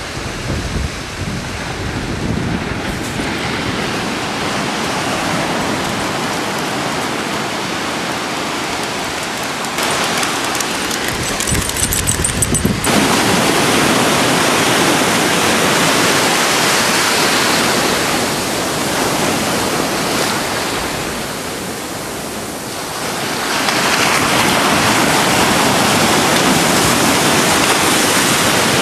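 Ocean surf washing and breaking, a steady loud rush of water that swells and eases, dipping for a moment about three-quarters of the way through. Wind rumbles on the microphone at times, near the start and around the middle.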